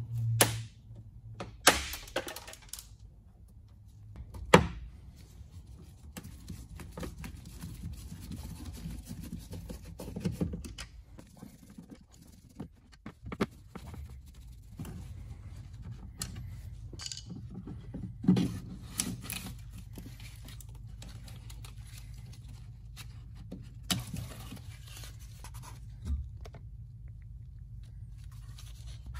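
Scattered clicks, knocks and rustling from hand work on a car's bare inner door panel, as plastic trim clips are pulled out and the door speaker is unscrewed, over a low steady hum. The sharpest knock comes about four and a half seconds in.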